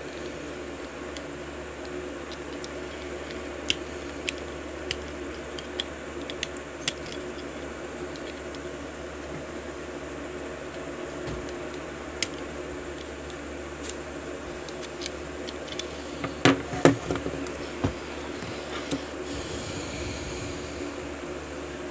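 Small metallic clicks and taps from handling a euro lock cylinder and its tools, with a cluster of louder clicks and clatters about three-quarters of the way through, over a steady background hum.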